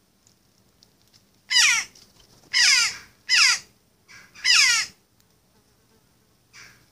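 Jackdaw calling: four loud, harsh calls, each falling in pitch, with a softer call just before the last.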